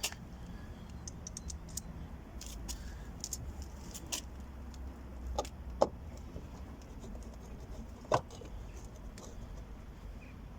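Light metallic clicks and small rattles of a screwdriver working on a T20 Torx screw in a car door trim panel, with two sharper clicks in the second half.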